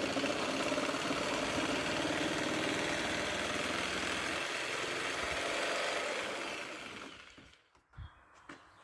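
Angle grinder with a cut-off wheel, turned down to low speed, cutting through a car's front bumper; it runs steadily, then fades and stops about seven seconds in, followed by two light knocks.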